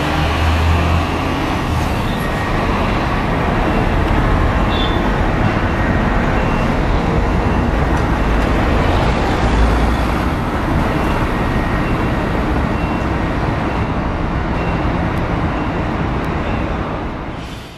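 Scania diesel engine of a Modasa Zeus 3 double-decker coach running as it drives off down the street, mixed with city traffic noise. A deeper low rumble swells at the start and again about ten seconds in.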